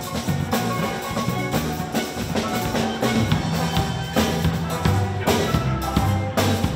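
Steel band playing: steel pans over electric bass guitar and a drum kit, with a steady beat.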